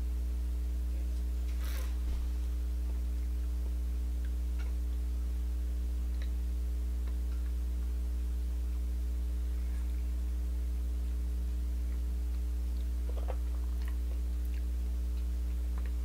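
Steady low electrical hum with several fainter steady tones above it. A faint mouth sound from sipping whiskey comes about two seconds in, and another faint small sound comes near the end.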